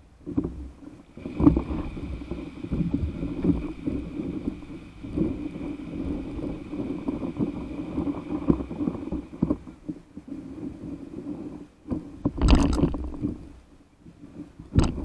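Seawater sloshing and lapping against a paddle board right at the board-mounted camera, an uneven churning rush, with a louder splash about twelve seconds in and a brief one near the end.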